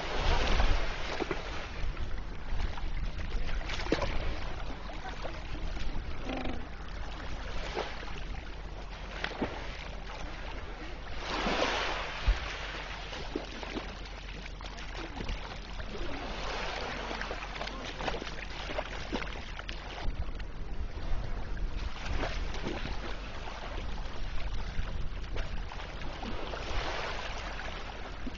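Sea swell washing against the foot of an iceberg, surging in waves every few seconds, with short splashes as penguins leap out of the water onto the ice.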